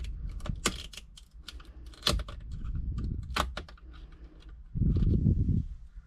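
Thin metal radio-removal keys clicking and scraping as they are pushed into the slots of a Mazda Miata NB's factory Bose head unit: a scatter of sharp, irregular clicks. A short, louder low rumble comes about five seconds in.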